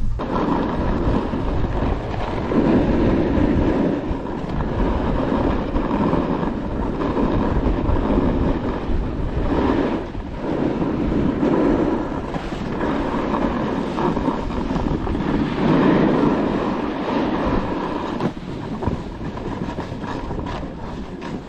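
Skis carving and scraping over packed snow at speed, swelling and fading about every two seconds as the skier links turns, with wind rushing over the microphone.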